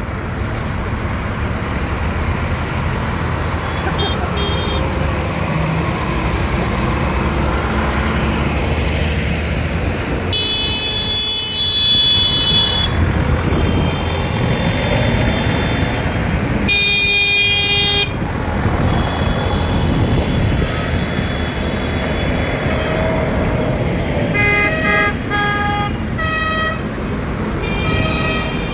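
A convoy of farm tractors and trucks driving past with engines running, and horns honking: a long blast about ten seconds in, a shorter one a few seconds later, and a run of short toots near the end.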